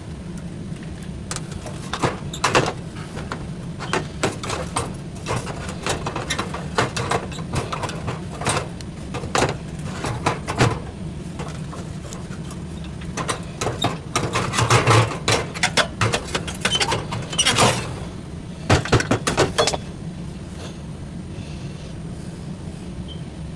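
Irregular sharp metallic clicks and clinks, like parts and tools being handled, over a steady low hum. The clicks are densest a little past the middle and die away near the end.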